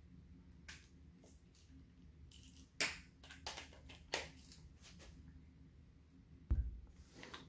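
Faint, scattered clicks and clacks of a screwdriver and gel blaster gearbox parts being handled, with a dull thump about six and a half seconds in.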